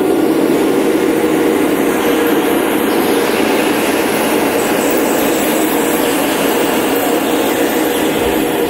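A loud, steady rumbling drone with a dense hiss above it and no beat, from the performance's electronic soundtrack.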